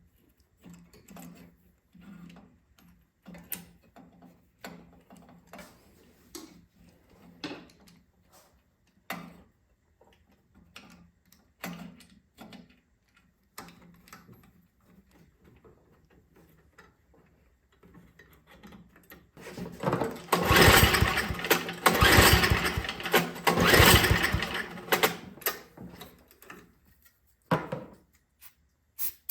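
Scattered light clicks of hand work on the snow blower's carburetor linkage. About twenty seconds in, the Tecumseh 5 hp engine turns over and fires loudly for about five seconds, then stops.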